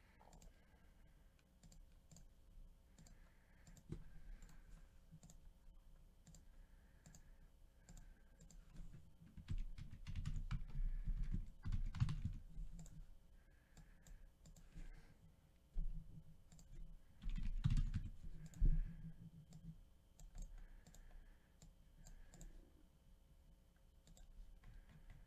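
Computer keyboard typing and mouse clicks, scattered and faint, with a few louder low thumps near the middle.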